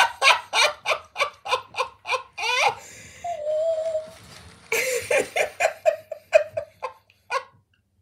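Long run of hearty laughter, rhythmic laughs about three or four a second, broken about three seconds in by a short held wavering note, then resuming and tailing off near the end.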